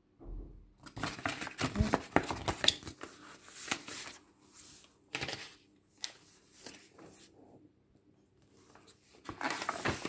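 Paper rustling and crinkling in irregular bursts as the stiff, aged pages and a folded tag insert of a thick handmade junk journal are unfolded and turned, quieter for a moment before a last flurry near the end.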